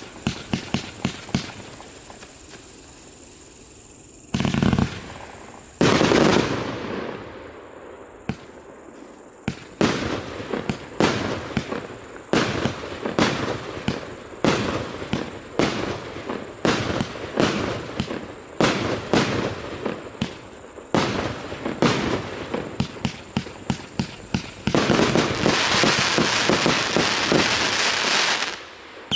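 288-shot, 1-inch consumer fireworks cake firing. A quick run of shots at the start, two louder bangs with long tails a few seconds in, then a long run of shots at about two a second, ending in a few seconds of dense continuous crackle before it stops.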